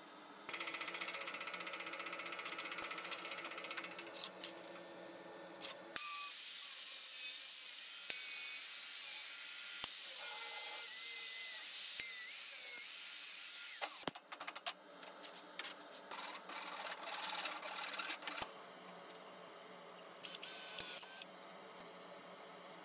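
Bosch angle grinder with a cut-off disc cutting through a steel rod: a loud, dense, high-pitched grinding hiss for about eight seconds that stops suddenly. Before it, a steadier machine hum with scraping. After it, scattered metallic clinks and scrapes of steel parts being handled.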